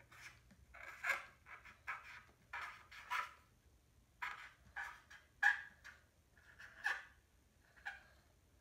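Felt-tip marker squeaking and scratching across paper in short, irregular strokes as letters are written, about a dozen strokes in all.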